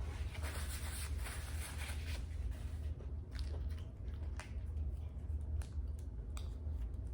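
Eating close to the microphone: about two seconds of crunchy rustling, then scattered small clicks of chewing and handling the food, over a steady low hum.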